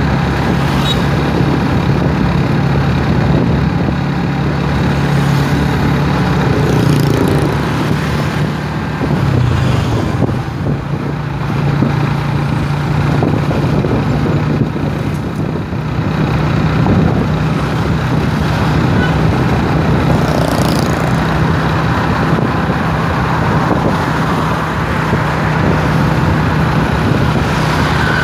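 Motorcycle engine running steadily while riding along a road, with wind and road noise and passing traffic. The engine note dips briefly about ten seconds in.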